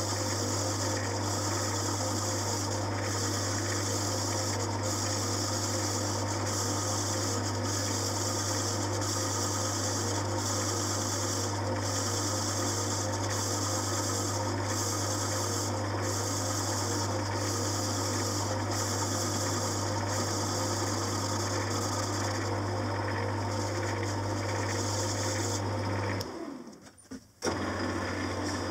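Metal lathe turning a cast iron flywheel: a steady motor hum under the hiss of the cutting tool on the rim, the hiss dipping faintly about once a second. The sound cuts out for about a second near the end, then resumes.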